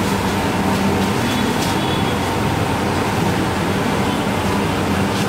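Jalebi frying in a wide pan of hot oil: a steady sizzling hiss over a low steady hum, with a few light clicks of the frying utensils.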